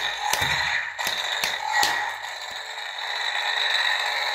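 Converted Hasbro Force FX Kylo Ren lightsaber sounding its unstable-blade hum through its built-in speaker, with a steady crackling, and several sharp pops in the first two seconds as the saber is moved.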